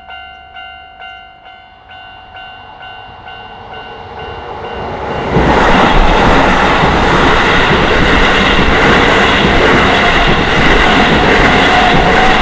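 Level-crossing warning bell ringing in repeated strokes about twice a second as a Keisei Main Line train approaches. From about five seconds in, the train passes over the crossing, loud and steady, and drowns out the bell.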